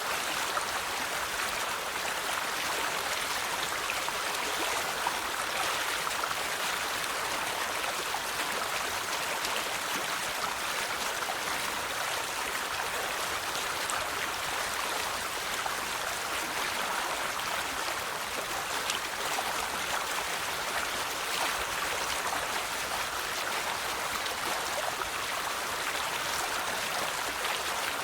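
River water flowing and babbling steadily over stones, an even rushing sound with no change throughout.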